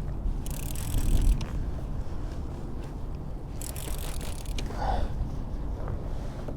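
Fishing reel drag ratcheting in two bursts of about a second each as a hooked fish pulls line off the reel, over a steady low rumble.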